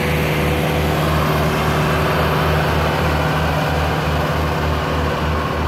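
Tractor diesel engine running steadily as it pulls a fully loaded sugarcane trolley, with an even low pulsing beat of about three to four pulses a second.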